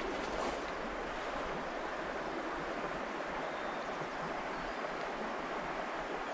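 Steady rush of shallow river water flowing over rocks.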